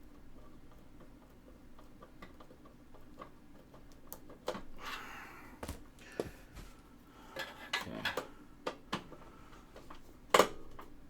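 Scattered clicks, knocks and scraping of small hardware being handled and fitted inside a computer case, like screws and a drive going into a plastic mounting frame. The loudest is a sharp click near the end.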